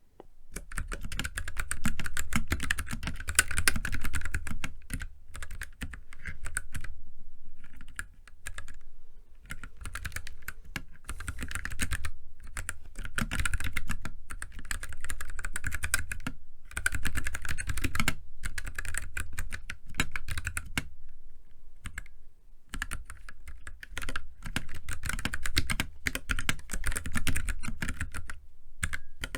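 Typing on a Keychron K3 Pro low-profile mechanical keyboard with Gateron Low Profile 2.0 banana switches: fast runs of key clacks broken by short pauses. The owner finds its sound fairly ordinary, unlubed and without dampening foam.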